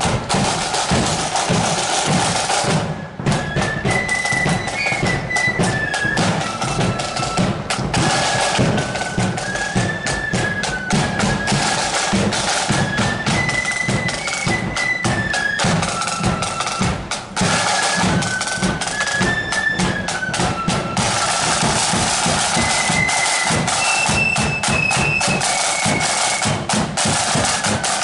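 Northern Irish loyalist marching flute band playing on parade: snare and bass drums keeping a busy march beat, with a high flute melody over them.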